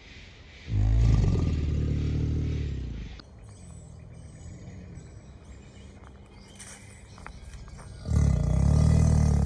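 Male American alligators bellowing their mating call. Two loud, deep rumbling bellows come through, one starting about a second in and lasting about two seconds, the other starting near the end, with fainter low rumbling between them.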